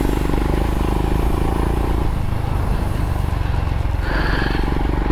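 Motorcycle engine running steadily at low speed on a dirt trail, with wind noise on the microphone. A brief high tone sounds about four seconds in.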